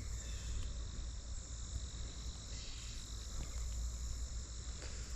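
Steady, high-pitched insect chorus over a low, even rumble.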